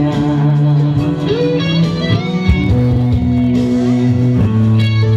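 Band music over a PA with no vocals: an electric guitar plays a melody over a steady bass line, an instrumental passage in a song.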